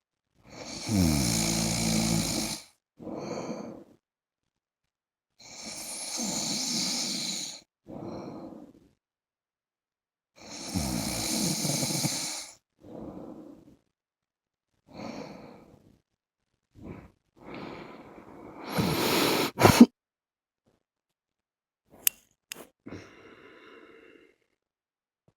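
A man snoring in his sleep: three long, loud snores about five seconds apart, each followed by a shorter, quieter breath. The snoring then breaks into a few shorter breaths and one loud, sharp breath, followed near the end by a couple of sharp clicks.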